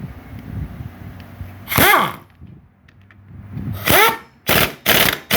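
Power impact wrench tightening an engine rotor's fixing bolt. Two hissing bursts, about two and four seconds in, each wind down with a falling whine. Near the end come short quick blips about twice a second as the bolt is driven home.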